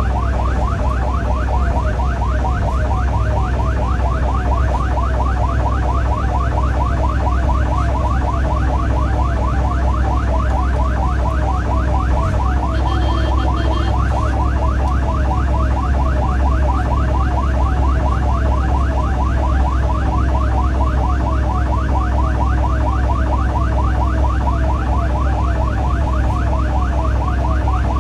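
Ambulance electronic siren in a fast yelp, several sweeps a second, heard from inside the cab over the low rumble of the engine and road.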